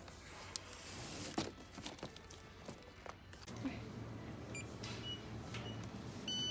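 Clicks and rustles of cardboard boxes being handled, then a self-checkout's handheld barcode scanner beeping over a low hum: two short faint beeps about halfway through and a louder, longer beep right at the end.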